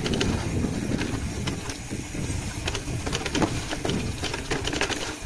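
Wind rumbling on the microphone and road noise from a moving ride, with scattered clicks and rattles.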